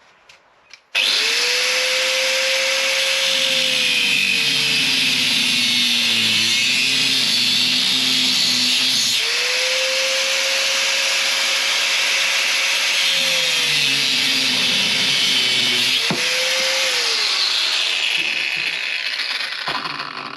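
Angle grinder cutting through a seized, hollow steel part of an old front shock absorber. It starts about a second in and runs loud and steady. Its pitch sags twice as the disc bites under load, and it winds down near the end.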